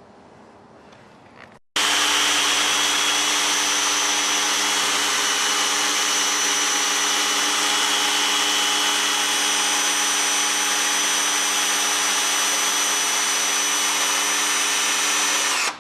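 Homemade CNC machine running: a loud, steady motor whine and rush with several fixed tones that starts abruptly about two seconds in and cuts off abruptly near the end.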